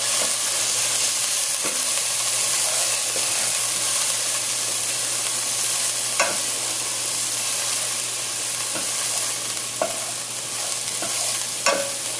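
Shallots and garlic sizzling in oil in a pot with a steady hiss, while a wooden spoon stirs and scrapes through them, knocking against the pot a few times.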